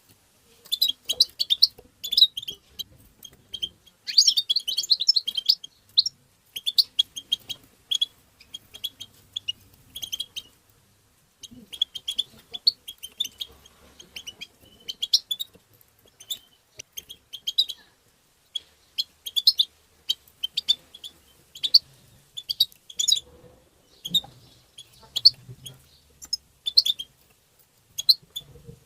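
European goldfinch giving its bright, liquid call notes and twittering in quick runs of short chirps, with a dense chattering burst about four seconds in and a brief pause near the middle.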